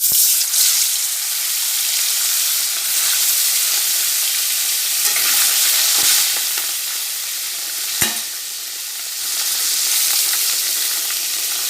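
Pieces of fish rubbed with turmeric and salt frying in hot oil in a kadai: a loud, steady sizzle. Two sharp knocks sound about six and eight seconds in.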